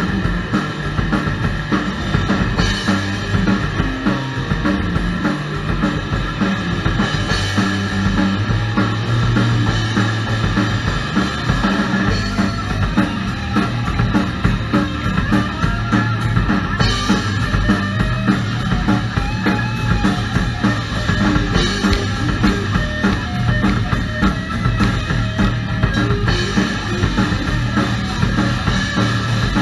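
Rock band playing live, led by a drum kit and electric bass guitar, steady and loud without a break.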